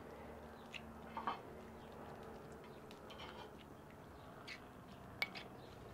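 Metal spoon tapping and scraping against a stone molcajete as diced cooked nopales are scooped in and stirred into salsa: faint, scattered clicks, the sharpest a little after five seconds in.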